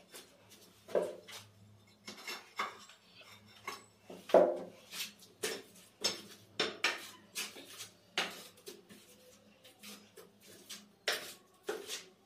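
Trowel clinking and scraping against a ceramic border tile and a metal mortar bucket as mortar is scooped and spread on the back of the tile: irregular sharp clinks and short scrapes, the loudest about four seconds in.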